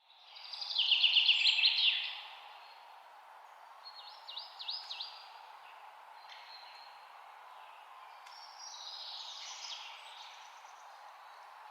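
Songbirds singing: a loud, rapid trilled phrase of high notes about a second in, then a few short sweeping notes around the middle and a fainter phrase near the end, over a steady outdoor background hiss.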